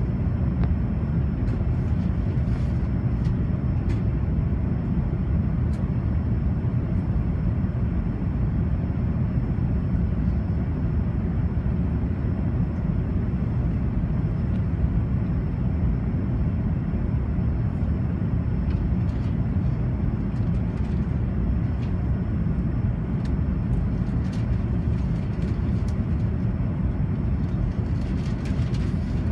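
Steady low rumble of an Airbus A380's engines and airflow heard inside the passenger cabin, with a faint steady high whine above it.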